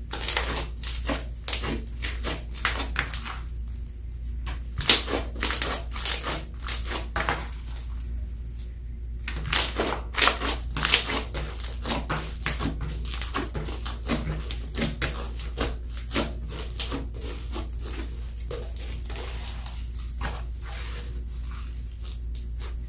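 Slime being squeezed and pressed by hand, giving rapid, irregular crackling clicks that thin out near the end, over a steady low hum.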